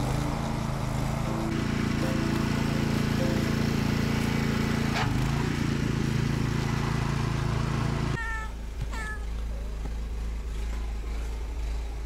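A steady engine hum cuts off suddenly about eight seconds in. Then a domestic cat meows twice in short calls.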